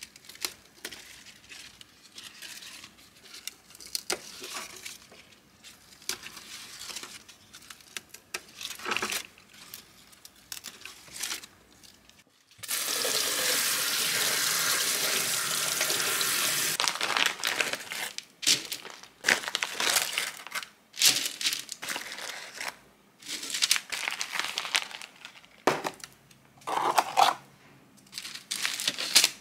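Crisp lettuce leaves rustling and tearing as they are picked by hand. About thirteen seconds in, tap water runs steadily for about four seconds onto the leaves in a stainless steel sink, the loudest sound. Irregular handling rustles, taps and paper crinkles follow.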